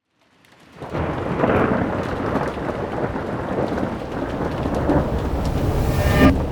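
Rain and rolling thunder fading in over the first second, then a steady downpour with low rumbling, and a sharper, louder thunder crash near the end.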